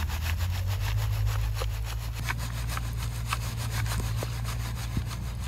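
Soil being sifted through a wooden-framed screen sieve shaken back and forth in a fast, even rhythm: sediment rasping over the mesh, with occasional sharp clicks of grit. A steady low rumble runs underneath.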